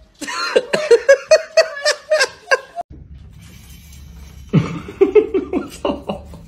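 A person laughing in quick repeated bursts for about three seconds, then, after a short break, laughing again from about halfway through.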